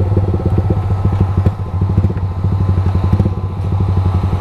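Motorcycle engine idling with a steady, even putter.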